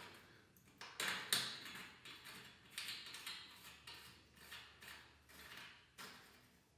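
Threaded rod being screwed by hand into a steel bed frame: irregular light metallic clicks and short scrapes as the threads turn in the hole, the sharpest just after a second in.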